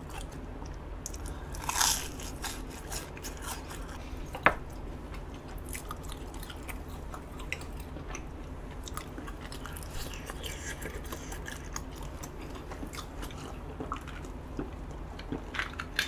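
Close-miked biting and chewing of a fried, batter-coated Korean hot dog: soft crunching with many small wet mouth clicks, a louder crunch about two seconds in and a sharp click a little later.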